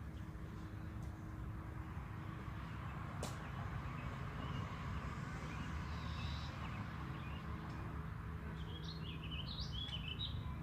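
Steady low outdoor rumble with a single sharp click about three seconds in, then a small bird chirping rapidly near the end.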